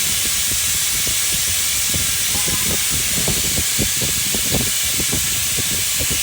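Fluid extractor (oil sucker) drawing leftover coolant and motor oil out of the engine's air charge manifold: a steady hiss with irregular slurping pops as liquid and air are pulled through.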